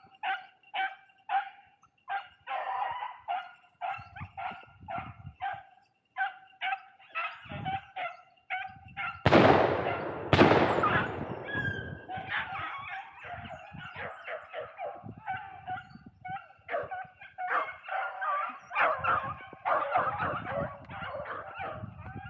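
A beagle pack baying and yelping as it runs a rabbit's trail, the voices coming in quick rhythmic bursts. Partway through, two loud shotgun shots ring out about a second apart.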